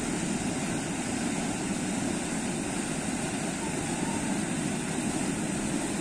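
Steady running noise of a small boat's motor, even in level with no change in pitch. A faint short whistle comes about four seconds in.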